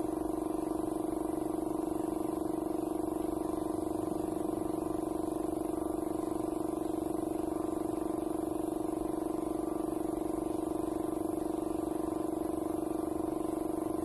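Air compressor running with a steady, even hum while it feeds a paint spray gun, with a constant faint hiss of air.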